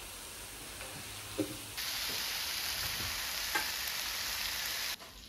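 Pork belly, sausages and vegetables sizzling on a griddle: a steady hiss with an occasional faint pop. It is fainter at first, jumps louder about two seconds in, and cuts off just before the end.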